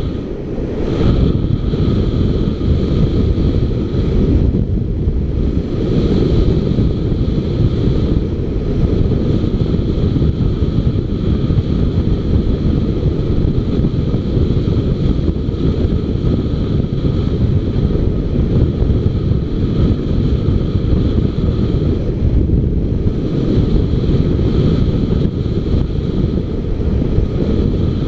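Wind rumbling steadily and heavily on the microphone of a camera on a moving motorcycle, with the bike's running and road noise mixed in beneath it.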